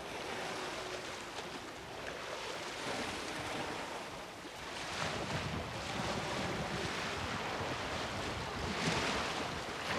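Small lake waves washing against a stony shore, with wind buffeting the microphone. The wash surges louder about halfway through and again near the end.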